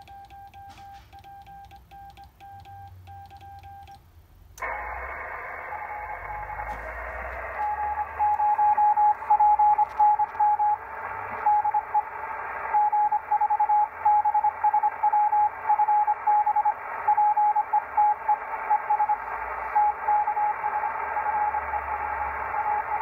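Morse code sidetone from a straight key being keyed for about the first four seconds. Then the Icom IC-725 switches to receive: a steady hiss of band noise, and a few seconds later the other station's Morse reply beeps over it as keyed dots and dashes.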